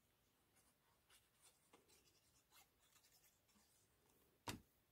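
Near silence with faint scratching as the nozzle of a liquid glue bottle is drawn across the back of a paper die-cut, and one short tap near the end.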